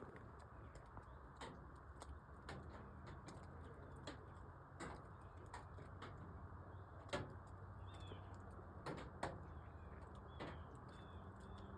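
Quiet woodland with scattered sharp clicks and small knocks at irregular intervals, the loudest about seven seconds in, and several faint short bird chirps in the second half.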